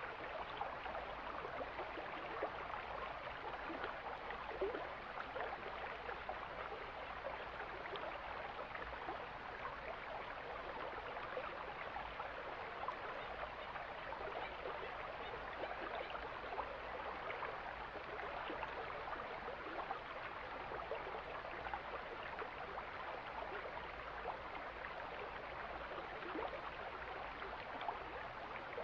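Mountain stream flowing, a steady babbling rush of water with small gurgles throughout.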